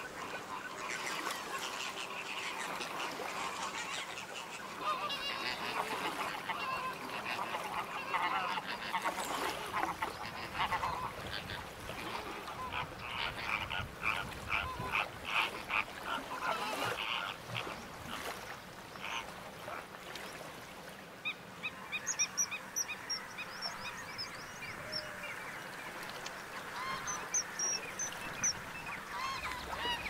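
A flock of waterbirds calling: a dense chorus of goose-like honking, with a fast run of calls in the middle and thin high chirps of smaller birds in the last third.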